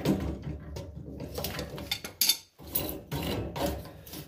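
Metal hand tools clinking and clattering as they are handled and set down, with sharp clanks near the start and a little past two seconds in.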